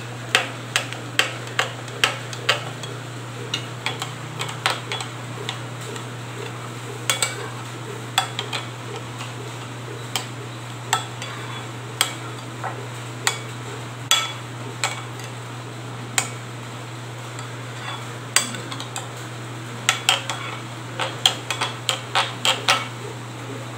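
Metal spoon stirring thick yogurt in a glass bowl, clinking against the sides in irregular taps that come faster near the end, over a steady low hum.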